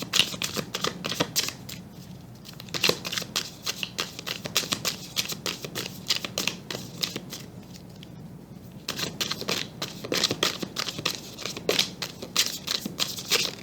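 A tarot deck being shuffled by hand: runs of rapid card flicks and clicks, easing off for a few seconds in the middle before picking up again.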